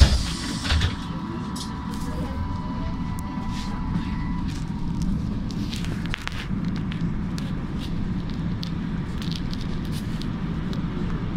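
Inside a moving trolleybus: a steady low rumble of the running vehicle, with scattered clicks and rattles. There is a thump at the very start, and a thin steady whine for the first few seconds.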